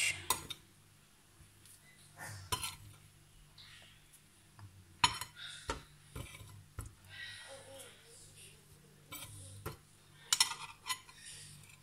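A few sharp clinks and taps of a spoon against a container and a stainless steel pot, with soft scraping between them, as ground crayfish is spooned into the pot.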